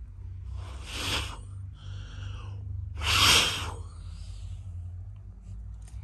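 Two strong puffs of breath blown onto dandelion seed heads, about a second in and about three seconds in, the second louder, with a short breath drawn in between.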